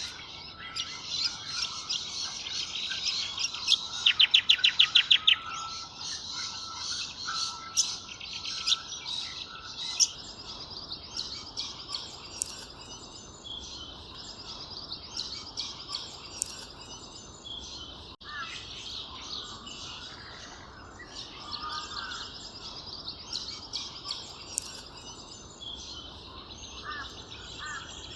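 Many small birds chirping and calling together in a steady dawn chorus. About four seconds in, a loud, rapid run of about ten sharp notes over a second and a half.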